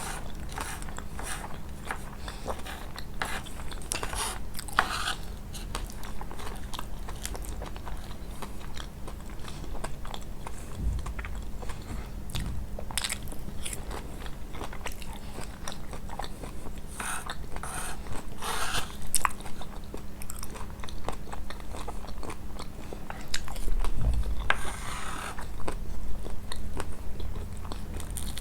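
Close-miked eating of Nablusi-style kunafa (shredded pastry with cheese): repeated bites and chewing with many small crackles, in heavier clusters a few seconds in, past the middle, and near the end.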